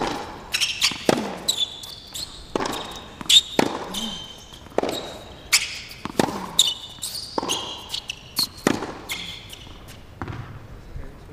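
Tennis practice rally: sharp pops of the ball off a Yonex racket's strings and its bounces on the court about once a second, with shoes squeaking in short high chirps between shots. The hitting stops near the end.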